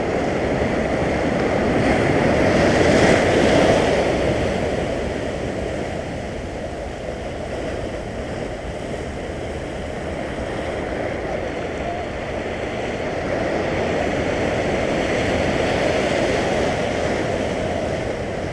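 Sea surf washing over flat shoreline rocks, a steady foaming rush that swells louder about three seconds in and again later on as waves break and spread.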